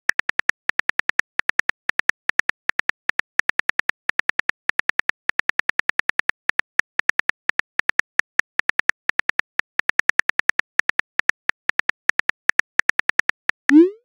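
Phone keyboard click sounds in a rapid, even run of taps, several a second with brief pauses, as a text message is typed. Near the end a short rising swoosh as the message is sent.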